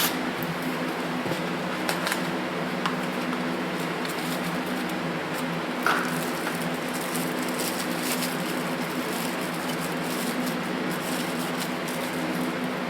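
Steady mechanical hum with a low drone, with occasional light clicks and taps from small carburetor parts being handled during reassembly.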